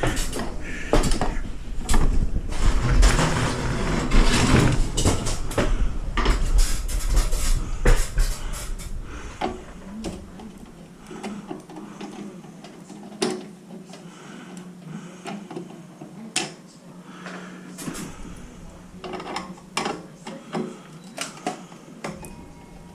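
Screwdriver work and handling of a garage door opener's sheet-metal housing: scattered clicks, scrapes and rattles as screws are backed out of the side panels. The first half is louder with heavier handling rumble; the second half has sparser clicks over a faint steady hum.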